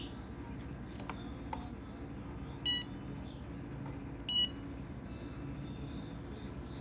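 LED dental curing light beeping twice: two short, high beeps about a second and a half apart, as it is switched on to cure a layer of composite resin on the tooth.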